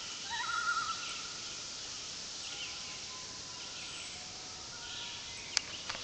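Wild birds singing in woodland: a short warbling song near the start, then faint scattered chirps over a steady background hiss, with a single click near the end.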